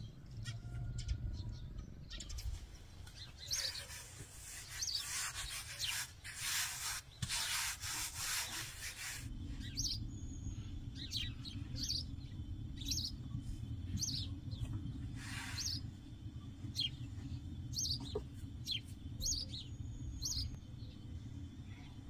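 Long wooden rolling pin rolling out a thin sheet of dough on a floured wooden board, a soft rubbing, rasping sound, strongest in the first half. Small birds chirp repeatedly throughout, more often later on.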